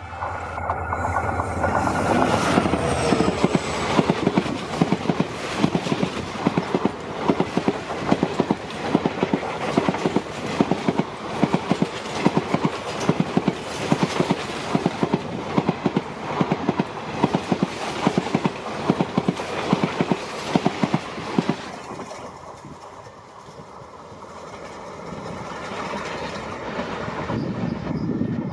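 EMD WDP4D diesel locomotive passing at full speed, its engine note falling as it goes by, followed by a long rake of passenger coaches whose wheels clatter rhythmically over the rail joints. The clatter dies down about two-thirds of the way through and swells again near the end.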